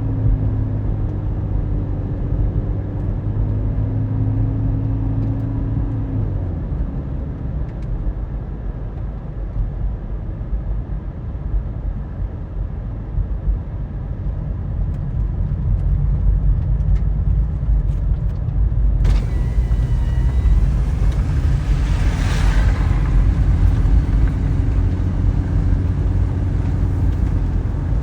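Car driving heard from inside the cabin: a steady low drone of engine and tyre noise. About two-thirds through the sound suddenly brightens, with a brief swelling whoosh a few seconds later.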